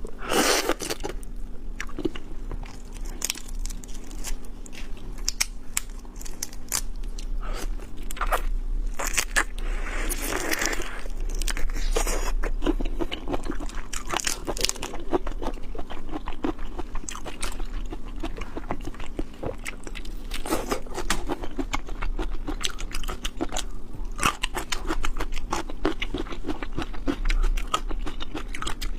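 Close-miked chewing and crunching of raw shrimp: wet bites and crackling shell, with dense clicks throughout.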